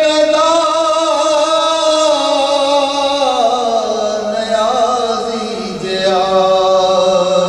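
A man singing a naat, a devotional poem praising the Prophet Muhammad, solo and unaccompanied, in long held notes. The melody slides down about halfway through, and a new phrase begins near the end.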